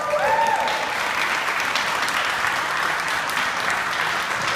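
Audience applauding steadily, with a few voices calling out at the start.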